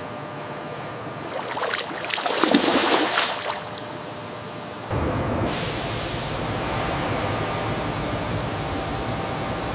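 Water churning and surging around a car body as it sinks into foamy water, swelling about a second and a half in and dying down after about three and a half seconds. About five seconds in, a steady, even hiss like spray mist starts suddenly.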